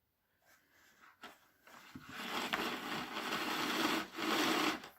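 Flat power cord being pulled out of a Philips XD3100 vacuum cleaner's cord reel, making a rough rubbing, scraping sound. It starts about two seconds in as two long pulls with a short break between them.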